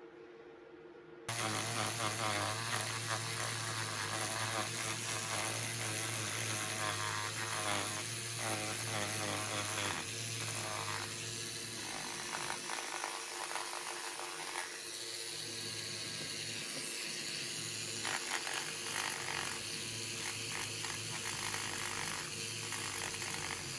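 Small pen-style electric rotary tool with a sanding band bit, starting about a second in and running steadily with a motor hum, while the spinning bit sands the edge of a dried air-dry clay piece with an uneven grinding rasp.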